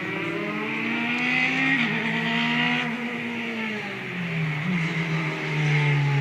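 Formula 3 race cars going by at speed, more than one engine running at once, their notes rising and falling in pitch as they pass.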